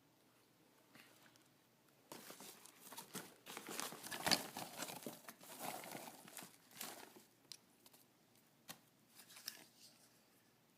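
Packaging crinkling and tearing as it is handled and opened by hand. There are a few seconds of dense crackling, then scattered light clicks and rustles.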